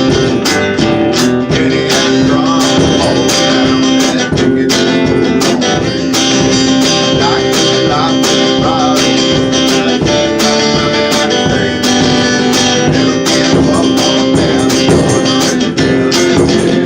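One-man band playing guitar, picked and strummed, over a steady percussion beat.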